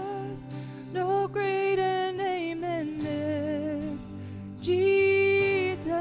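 A singer sings with vibrato over instrumental accompaniment, in a rehearsal run-through of a song. The singer moves through a phrase, then holds a long, louder note near the end.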